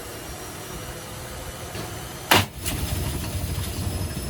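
A loud sharp bang a little over two seconds in, then a washing machine's drum motor starts running with a louder low rumble.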